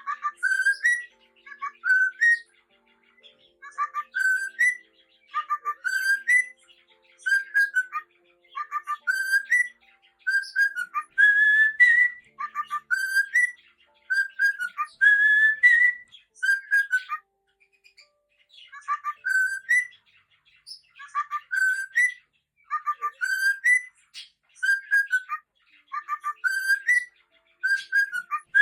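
Cockatiel singing: a short whistled phrase of gliding, rising notes, repeated over and over every second or two with brief pauses between.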